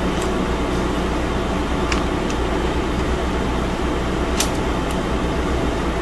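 Steady fan-like hum of room noise, with a few faint, light clicks as the Apple IIe keyboard assembly and its replacement key switch are handled.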